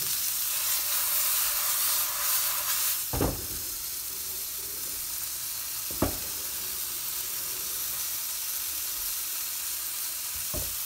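Flour-coated chicken breast pieces sizzling steadily in hot oil in a frying pan on medium heat, the sizzle easing a little after about three seconds. Three short clicks of metal tongs against the pan as the pieces are turned over.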